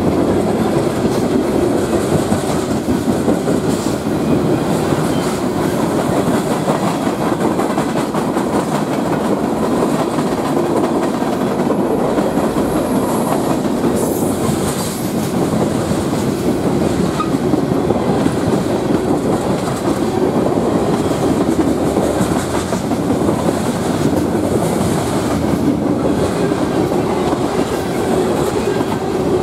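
Freight cars (tank cars, a covered hopper and a centerbeam flatcar) rolling past close by: a steady rumble of wheels on rail with clickety-clack over the rail joints.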